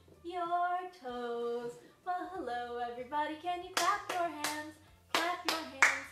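A woman singing a song, and in the second half clapping her hands about six times in a quick, uneven rhythm.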